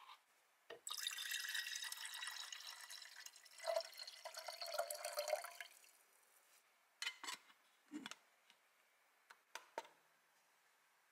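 Water poured into an electric gooseneck kettle with a stainless-steel interior, running for about five seconds. Then several short clicks and knocks, the last of them as a button on the kettle's base is pressed.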